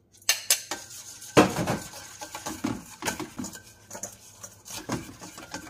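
Metal spoon clinking and scraping against a stainless steel mixing bowl while stirring beaten egg with flour and seasonings, in irregular strokes. The loudest clink comes about a second and a half in.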